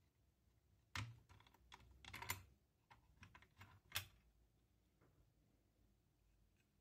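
Faint handling clicks and knocks as a milled wooden blank is worked loose from its clamps and lifted off the aluminium bed of a small CNC router. There is one click about a second in, a quick cluster near two seconds, a few more after that, and a sharp click at about four seconds.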